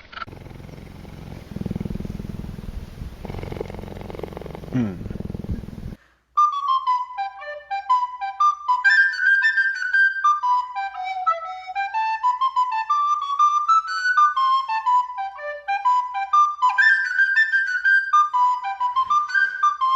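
A low, noisy rumbling sound for the first six seconds, cut off by a brief silence. After it, a solo flute-like melody plays quick running notes that rise and fall.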